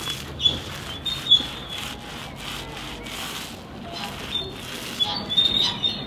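Paint roller loaded with white paint rubbing over a rough concrete wall in repeated strokes.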